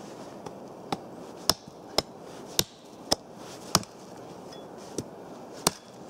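Small hatchet chopping a fallen birch branch: a run of about nine sharp strikes, roughly two a second, with a short pause after the middle.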